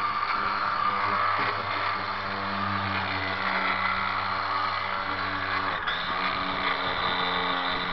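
Handheld electric sander running steadily against the underside of an RV's black water tank, its pitch shifting slightly about six seconds in.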